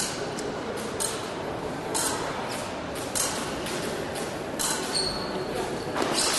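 Steel épée blades clinking and clashing in irregular sharp metallic hits, some leaving a short high ring, over the murmur of a large hall.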